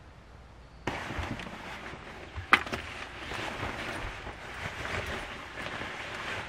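Starting about a second in, a nylon rain jacket rustles and swishes as it is pulled on and shrugged over the shoulders, with one sharp click about two and a half seconds in.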